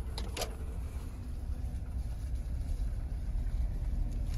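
Suzuki Jimny JB74's 1.5-litre four-cylinder engine and drivetrain rumbling low and steady as it crawls over a rough woodland track, heard from inside the cabin. A couple of short knocks come about half a second in.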